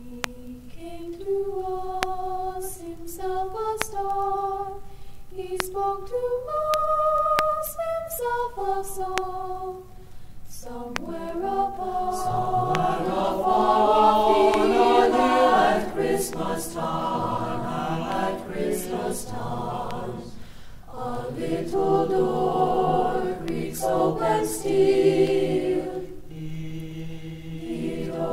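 Mixed high school choir singing a cappella, with no accompaniment. It opens on a single melody line, and the full choir comes in with several parts in harmony about eleven seconds in.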